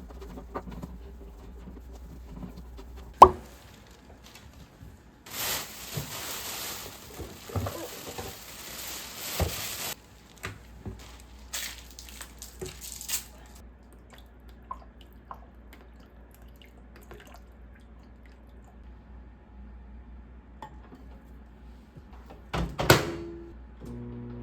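Kitchen tap running for about five seconds, with a few shorter splashes after it, among dishes and utensils clinking and knocking. A sharp clack comes about three seconds in, and a louder clatter near the end.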